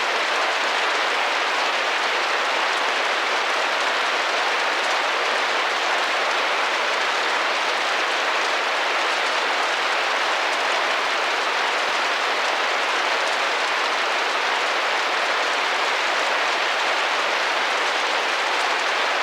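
Steady rain drumming gently against a window pane, an even hiss of drops.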